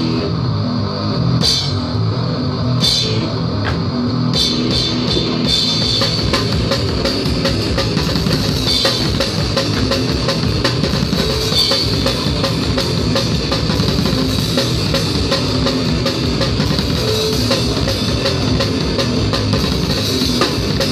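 Live hardcore metal band playing at full volume: fast drum kit with cymbal crashes, and guitar. Several crashes come in the first few seconds.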